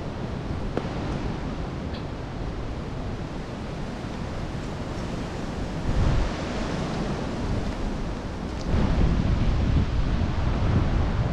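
Wind buffeting the microphone in gusts, a dull rumbling noise that strengthens about six seconds in and again, louder, near nine seconds.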